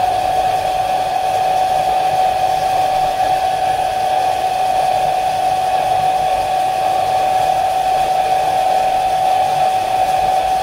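Hair dryer running steadily, a continuous whine from its fan motor over the rush of air, heating a phone's display flex cable to loosen it from the charging board.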